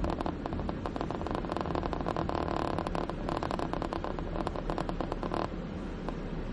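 A dense, fast crackling rattle from inside a moving car over rough city pavement, over a low steady road and engine rumble; the crackle cuts off suddenly about five seconds in as the car comes to a stop, leaving the low hum of the idling car.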